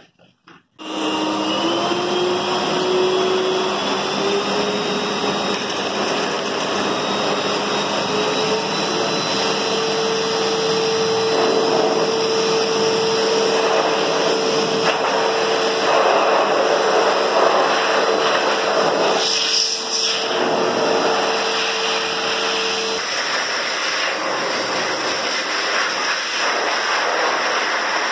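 Dog grooming blower dryer switched on about a second in: a loud steady rush of air with a motor whine that rises in pitch over the first several seconds as it spins up, then holds. Later the whine drops away while the air keeps blowing.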